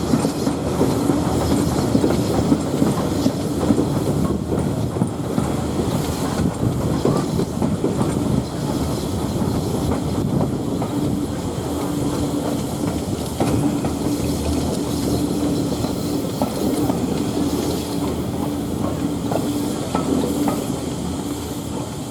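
Steam-hauled heritage train running along the line: steady rumble of the coaches with wheels clicking over the rail joints.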